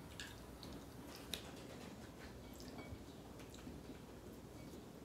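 Faint sounds of a ripe mango being cut by hand with a knife: a few soft small clicks, one a little louder about a second and a half in, over a quiet room.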